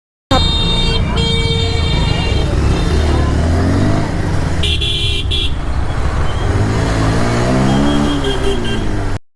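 Road traffic: vehicle engines running with horns honking, one short honk at the start and another about five seconds in. The sound starts and cuts off abruptly.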